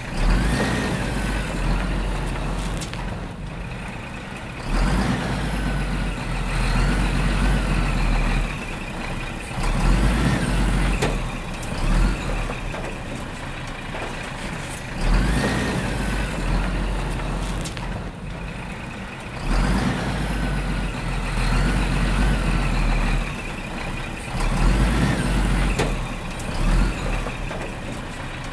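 Heavy machine engine revving in repeated surges about every five seconds, with rising and falling whines over a deep rumble.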